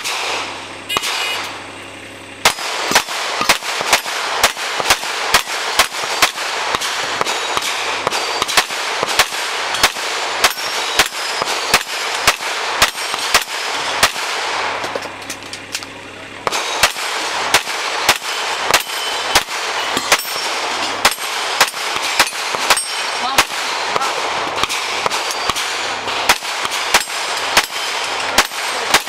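Rapid pistol fire from a custom Glock 17 open-class race gun shooting steel plates, about two shots a second, with the steel clanging and ringing on hits. The firing breaks off for about two seconds in the middle, then a second string starts.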